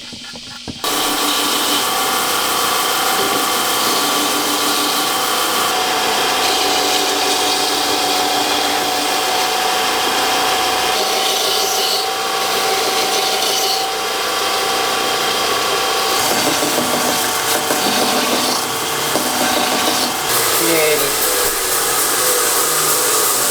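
A handheld power tool running steadily against hardwood, cutting down the small step and rough surface at a glued-up stool seat joint. It starts abruptly about a second in and stays at an even level.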